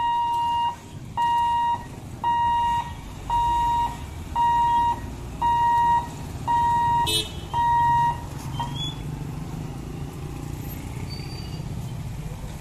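Level-crossing boom barrier's warning buzzer beeping eight times at one steady pitch, about one beep a second, stopping about eight seconds in, with a sharp click near the last beeps. Motorcycle and road traffic engines run underneath and carry on after the beeping stops.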